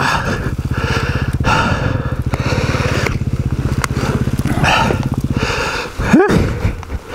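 KTM 350 EXC-F single-cylinder four-stroke dirt bike engine chugging at low revs as the bike creeps up a steep, rutted trail. The engine stops about five and a half seconds in as the bike tips over, and a short cry from the rider follows.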